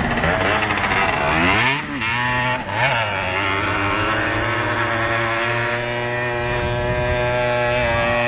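Small motorbike engine revving, its pitch dipping and climbing back twice about two and three seconds in, then holding at a steady pitch.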